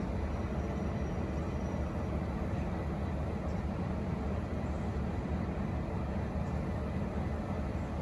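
V/Line N class diesel-electric locomotive's diesel engine running steadily, mostly a low sound, with no horn sounding.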